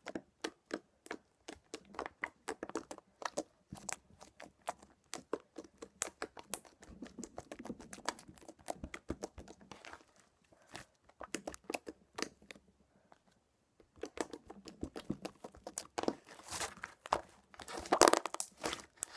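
Green slime being squeezed, pinched and kneaded by hand, giving rapid irregular clicks and pops that get busier and louder near the end.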